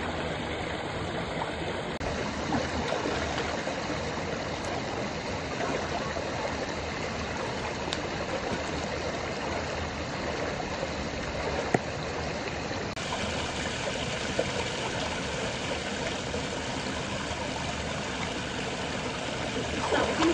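Steady rush of flowing water with sloshing from people wading through shallow muddy water, and a single sharp knock about halfway through.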